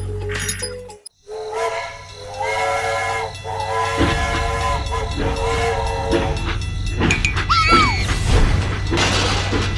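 Music or sound effects with held, horn-like tones, a steady low rumble and a short gliding whistle.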